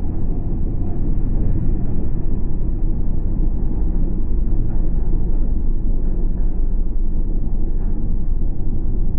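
1953 Chevrolet panel truck's inline six-cylinder engine and exhaust rumbling steadily as the truck rolls slowly over, heard from underneath, muffled, with no high end.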